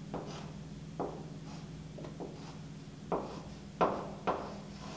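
Chalk tapping and scratching against a chalkboard as short tick marks are drawn: six or seven brief, sharp taps at uneven intervals, about a second apart.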